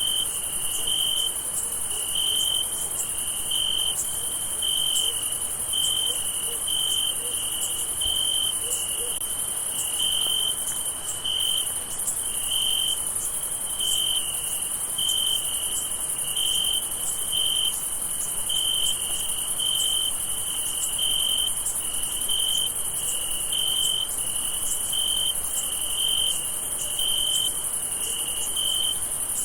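Crickets chirping at night: a continuous, very high-pitched insect chorus, with one louder cricket giving steady, regular chirps at a lower pitch about once a second.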